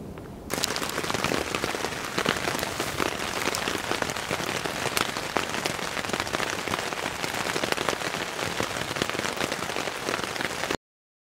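Rain falling steadily on a tent, a dense patter of many drops hitting the fabric. It starts suddenly about half a second in and cuts off near the end.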